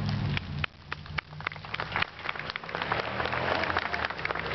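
Scattered hand-clapping from a small crowd, a few claps at first and filling out into steady applause after about a second and a half.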